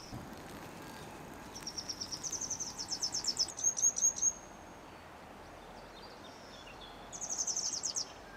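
A small songbird singing two rapid high trills, one lasting nearly three seconds and another near the end, over a faint steady outdoor hiss.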